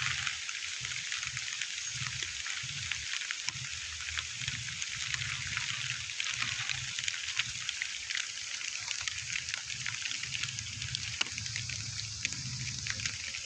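Rain and water falling steadily: a continuous hiss scattered with many small drips and splashes, with low rumbling on the microphone that comes and goes.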